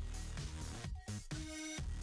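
Electronic background music with a steady beat and synth notes, some gliding down in pitch.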